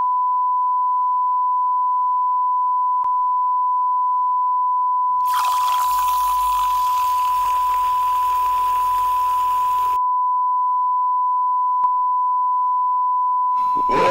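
A single continuous electronic beep tone, high and held at one steady pitch without a break. A rushing, hissing noise joins underneath it from about five seconds in and cuts off about ten seconds in.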